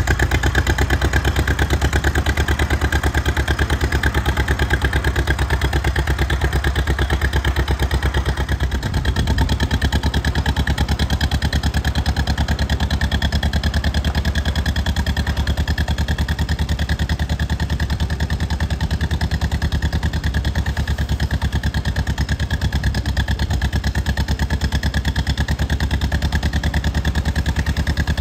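The two-cylinder engine of a 1956 John Deere 420W tractor running steadily, with an even pulsing exhaust beat while the tractor is driven with a loaded front-loader bucket.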